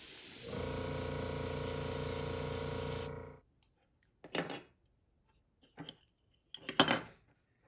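Airbrush spraying paint in a steady hiss for about three seconds, joined about half a second in by a steady motor hum; both stop together. Then a few short clicks as the metal binder clips holding the lure are handled.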